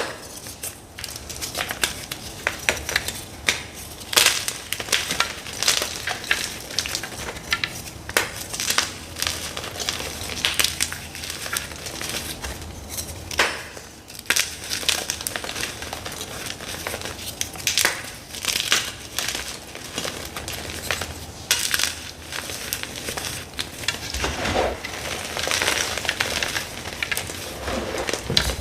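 Dyed gym chalk blocks being crushed, a dense, irregular run of dry, crisp crunches and crackles.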